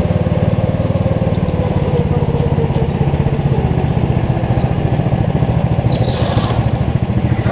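Go-kart engine running at a steady pitch, heard from the driver's seat.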